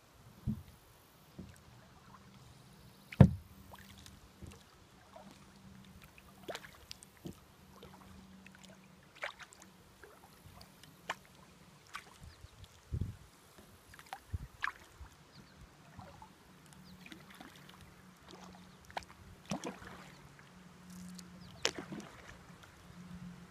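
Kayak being paddled: irregular knocks and clicks of the paddle on the hull and water dripping off the blade, one knock about three seconds in much louder than the rest.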